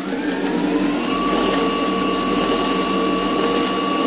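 Extreme Bull K6 electric scooter's hub motor spinning its wheel freely at full throttle: a whine that rises for about the first second and then holds steady at top speed, about 150 km/h, over a steady whirring noise.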